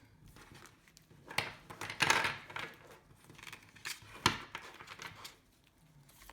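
A deck of tarot cards being shuffled and handled: irregular rustling and clicking of card stock, busiest about two seconds in, with a sharp snap a little past four seconds.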